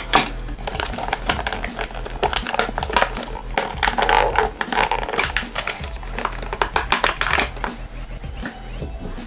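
Clear plastic blister packaging crinkling and crackling in irregular bursts as it is handled and pulled apart, over background music.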